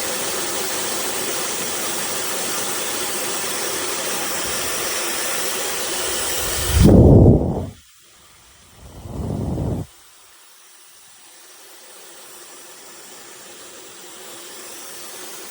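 A 1200 W high-speed hair dryer runs with a steady rushing whoosh of air, then stops about seven seconds in. Two low rumbling blasts of about a second each follow. A faint steady hum is left after them.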